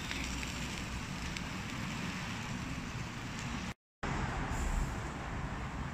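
Steady hiss of pork chops sizzling on a charcoal grill, with a low rumble underneath. The sound cuts out completely for a split second about two-thirds of the way through.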